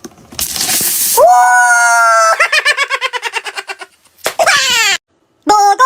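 A person's high-pitched non-verbal vocal sounds: a short breathy hiss, then a held squeal, then a fast chopped cackle of about eight pulses a second, and near the end a brief falling squeal.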